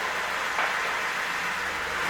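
VAZ Zhiguli car running: a steady hissing rush with a faint low engine hum, and a soft knock about half a second in.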